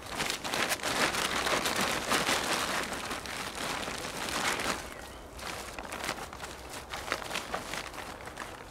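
Survival tarp rustling and crinkling as it is gathered and bunched together by hand, with dry leaf litter crackling underneath. The noise is densest through the first five seconds, then drops to lighter, scattered crackles.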